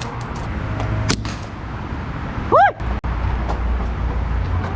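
Steady low rumble and hiss of wind and movement on a body-worn mic, with a couple of sharp clicks about a second in. About two and a half seconds in comes a brief, very loud cry whose pitch rises and falls.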